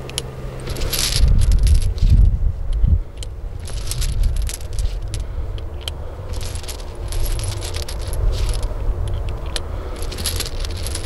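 Brass cartridges clicking and clinking against each other and the open cylinder of a Chiappa Rhino .357 Magnum revolver as it is reloaded by hand, in many small separate clicks. A low rumble is loudest between about one and three seconds in.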